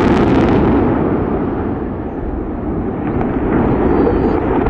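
Explosive demolition of a 453-metre motorway viaduct: a loud, sustained rumble of the blast and the bridge deck crashing down into the valley. Sharp crackling reports come at the very start, and the rumble swells again about three seconds in.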